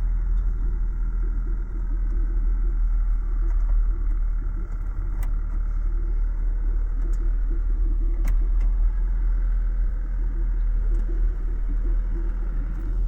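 A work vehicle driving slowly across a grass field: a steady low engine and ride rumble, with a couple of brief sharp clicks.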